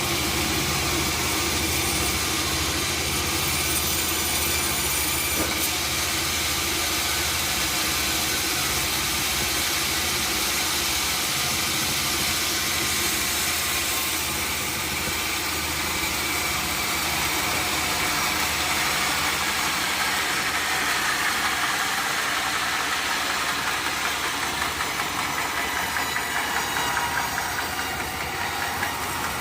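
Sawmill machinery running steadily: a low motor hum under a dense high hiss.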